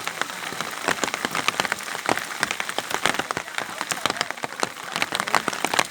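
Rain falling, with many large drops striking close by in a dense, irregular patter.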